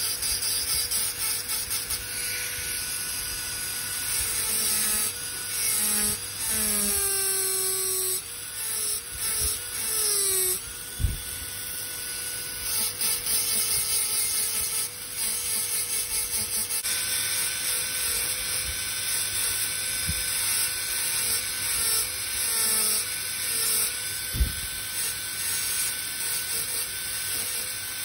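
High-speed dental handpiece whining as its bur grinds a model molar during crown preparation. Its pitch dips and slides down several times as the bur bears on the tooth, then holds steady. Two sharp taps are heard, about 11 s and 24 s in.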